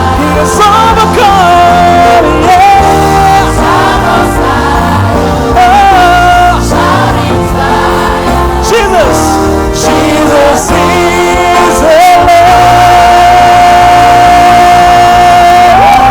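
Live worship music: a singer's voice over full band backing, ending in a long held high note from about twelve seconds in.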